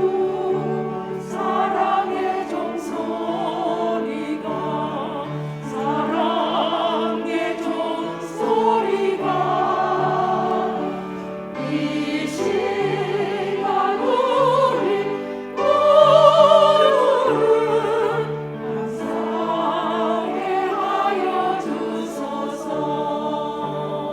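Church choir singing a hymn in sustained, swelling phrases over steady held chords, loudest about two-thirds through.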